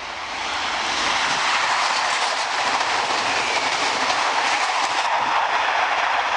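Alstom Euroduplex double-deck high-speed train passing at speed: a steady rush of wheel and air noise that swells in over the first second and begins to fade near the end.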